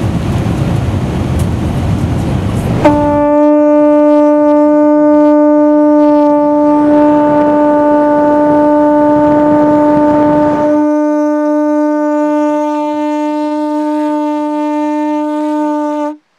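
Jet airliner cabin roar for the first few seconds, then a queen conch shell horn blown in one long, steady, unwavering note that lasts about thirteen seconds and cuts off suddenly near the end.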